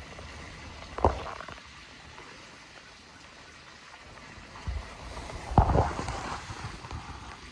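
Two dull thumps, one about a second in and a louder one a little past halfway, the second followed by a brief rustle.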